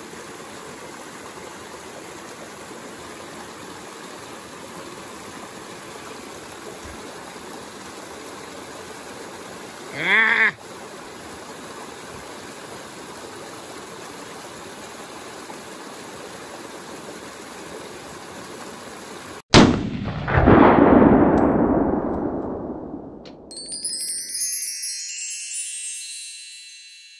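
Steady rush of a small mountain stream and waterfall. About ten seconds in comes a brief cry that rises in pitch. After an abrupt cut, an edited sound effect plays: a loud hit with a falling swoosh, then a glittering chime near the end.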